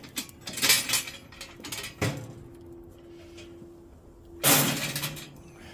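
Burning charcoal clinking and tumbling as it is poured from a metal chimney starter into the grill, in several clatters, with one louder metallic clatter about four and a half seconds in.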